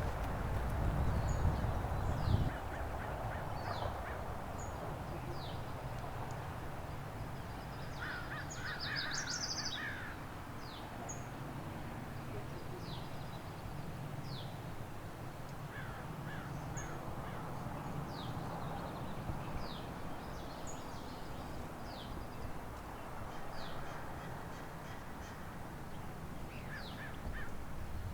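Outdoor ambience of birds chirping and calling: many short, high, falling chirps scattered throughout, with a few busier bursts of calls about eight seconds in and near the end, over a steady low rumble that is louder for the first couple of seconds.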